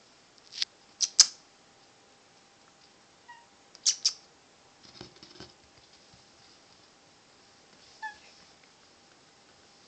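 A rescue kitten giving a couple of short, high mews, among several sharp, loud taps. A faint steady hum underneath.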